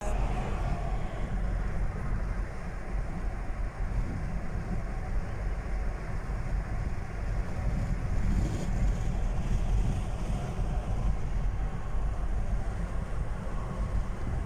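Steady low road and engine rumble inside the cabin of a moving car on the highway.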